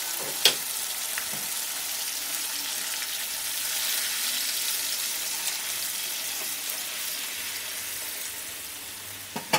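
Hot oil and spice paste sizzling in a pan as boiled chana dal, bottle gourd and their cooking water are poured in. The steady hiss swells a little about four seconds in and eases off near the end. There is a sharp click about half a second in.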